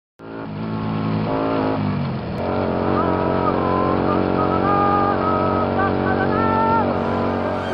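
Honda Shadow VT1100C3 Aero's V-twin engine running under way, its pitch dropping about two seconds in. From about halfway, a man's voice calls out over the engine.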